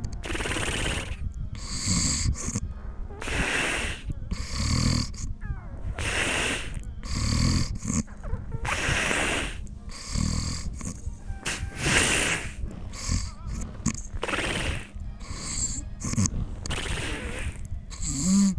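Snoring: a run of noisy breaths, one after another every second or so, several of them with a low rattling buzz.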